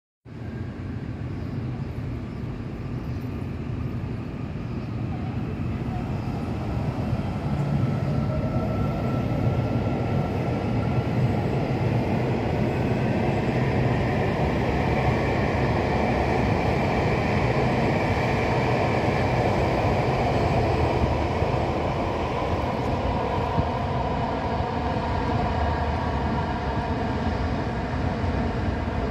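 Taiwan Railway EMU800 electric multiple unit pulling away and accelerating: a steady rumble of wheels on the rails, with the traction motors' whine rising in pitch over the first twenty seconds or so.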